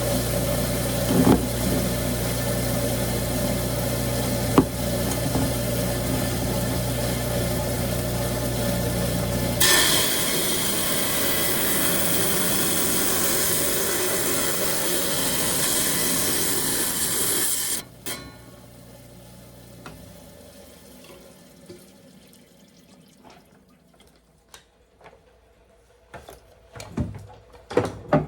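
10-inch Hi-Tech Diamond lapidary saw running with a steady motor hum. About ten seconds in, a loud hissing grind takes over as the diamond blade cuts through the malachite. The cut sound stops abruptly about eight seconds later, and a few small clicks and knocks of handling follow.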